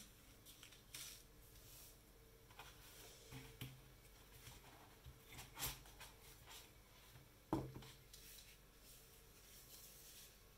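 Near silence broken by faint handling noises: a DJI Osmo Mobile 2 phone gimbal is gripped and lifted out of its foam-lined case, with light rubbing and a few soft knocks. The sharpest knocks come just past the middle and again about two seconds later.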